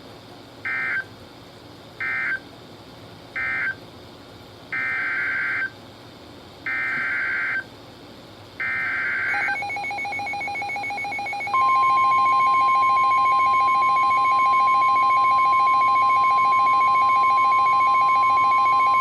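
NOAA Weather Radio alert signalling through a Midland WR-120 receiver: three short SAME end-of-message data bursts, then three longer SAME header bursts announcing the next warning. About two seconds later the steady 1050 Hz warning alarm tone begins. Under it a rapidly pulsing alarm sounds, the receiver's alert set off by the header.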